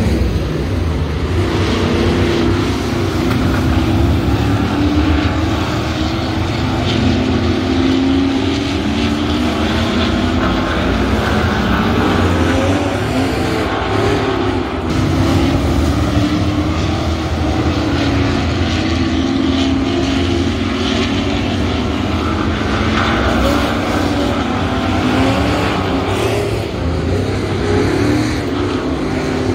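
Several dirt-track super trucks (pickup-bodied race trucks) racing laps, their engines running hard together, with the pitch rising and falling as they go down the straights and through the turns.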